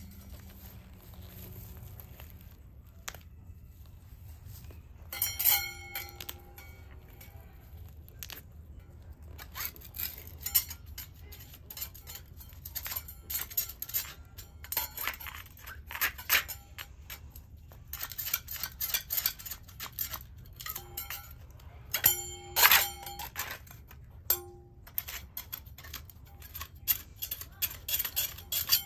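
Hands pulling grass and scratching dirt and weeds out of the gap between a concrete path and a step, making irregular scraping, crackling and tearing sounds. Two short ringing clinks come about five seconds in and again about twenty-two seconds in.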